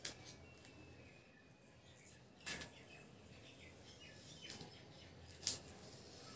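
A few sharp clicks or taps over a quiet background: one right at the start, one about two and a half seconds in and the loudest about three seconds later, with faint thin high chirps between them.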